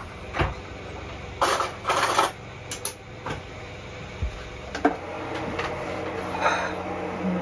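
Several short knocks and rustles, then a steady low hum that sets in about five seconds in.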